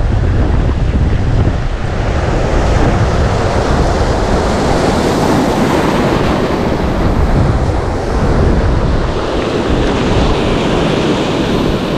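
Strong wind buffeting the microphone with a low rumble, over the steady wash of surf.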